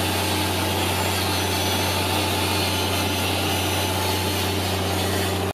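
Handheld angle grinder running against the rusted steel of a tank hull, a continuous even grinding noise over a constant low hum.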